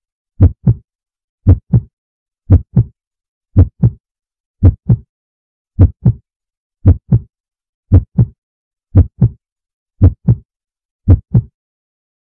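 A heartbeat sound effect: paired deep thuds, a double beat about once a second, eleven times, with dead silence between the beats.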